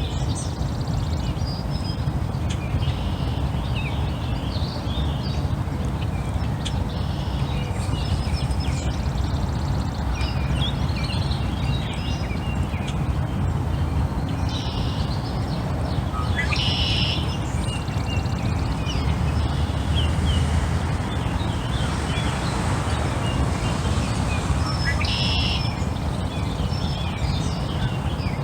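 Birds calling at intervals, short chirps and calls, more of them about halfway through and again near the end, over a steady low rumble.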